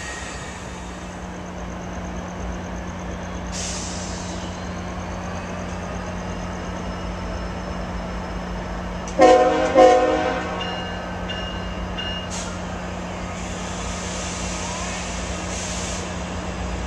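Diesel locomotive horn sounding two short blasts about half a second apart, over a steady low hum. Two short blasts is the standard signal that a train is about to move off.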